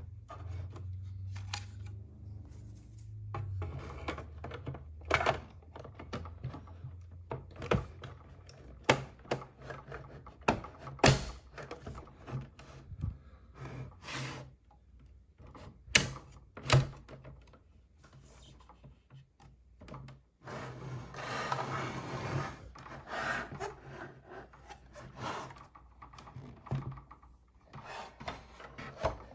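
Hands handling small plastic toy pieces and packaging: scattered clicks and knocks, with a stretch of rustling about two-thirds of the way through.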